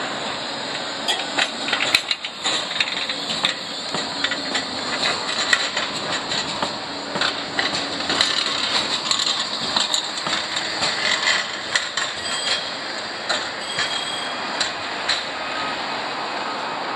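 Bombardier Flexity 2 tram passing close by on street track, its wheels clicking and knocking over the rail joints and points amid a steady rolling noise. A few short high wheel squeals come later in the pass, and the clicking thins out as it moves away.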